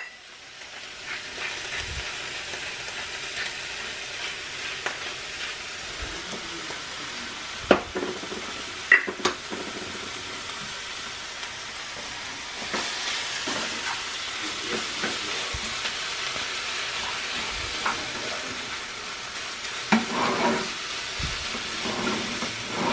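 Ground beef and tomato frying in a skillet on a gas burner: a steady sizzle, with a few sharp clicks of a utensil against the pan. The sizzle grows louder about halfway through.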